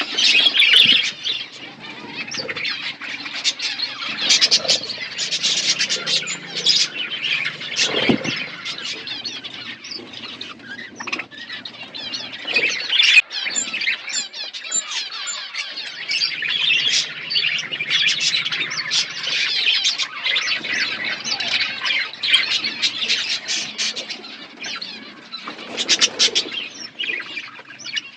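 A flock of budgerigars chirping and chattering continuously, many overlapping warbles and squawks.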